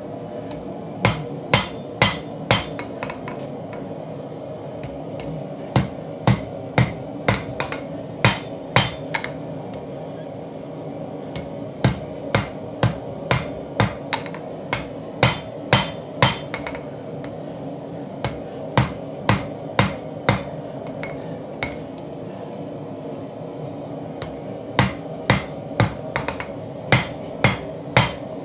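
Hand hammer striking a hot Damascus steel blade on an anvil while forging its point: runs of sharp blows about two a second, broken by pauses of a few seconds.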